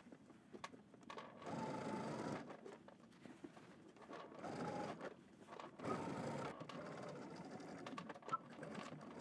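Domestic sewing machine stitching through denim along a zipper, edge-stitching a jeans fly. It runs in three short bursts of about a second each, with pauses between.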